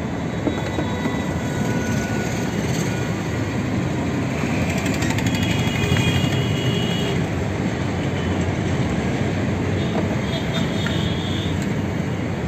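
Steady rumble of vehicle noise, with faint high squeals about halfway through.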